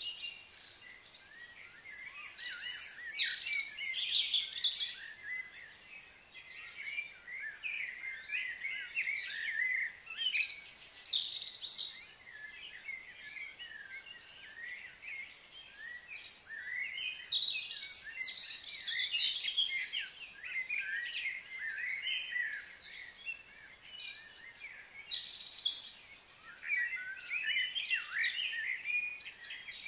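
Wild birds chirping and singing in bursts of quick, high notes, the phrases coming every few seconds over faint outdoor background noise.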